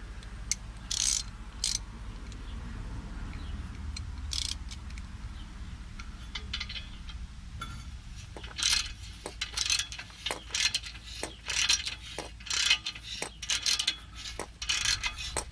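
Ratcheting wrench clicking in short, irregular bursts as it turns a 12 mm × 1.25 metric tap, chasing the rusty threads in a catalytic converter's exhaust flange. Only a few clicks at first, then rapid bursts from about halfway on.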